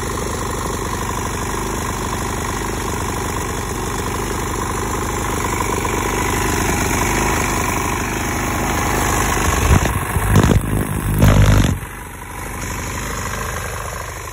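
Craftsman push mower's single-cylinder engine running steadily with no oil in its crankcase. About ten seconds in, a couple of seconds of loud, low rumbling bursts cover it, then it runs on slightly quieter.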